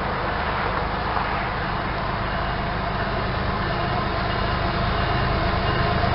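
A train running by: a steady rumble with rail noise, growing slightly louder toward the end.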